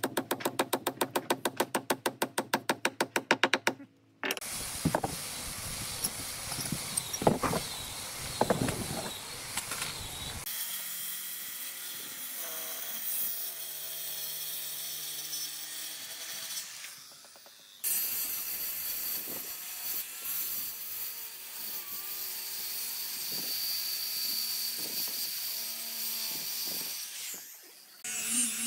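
A fast, even run of knocks for about four seconds, then a Maktec handheld circular saw running and cutting through a pine board in two long passes, with a short break between them.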